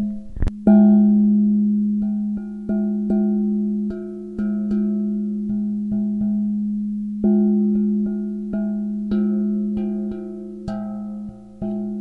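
Himalayan gong struck over and over, about two or three strokes a second, each stroke renewing a steady low ringing tone with higher overtones that fades until the next. One harder hit lands about half a second in.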